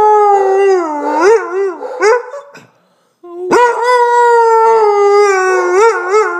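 Basset hound howling: one long howl that wavers and falls away about two and a half seconds in, then after a short pause a second long, held howl that wobbles in pitch near the end.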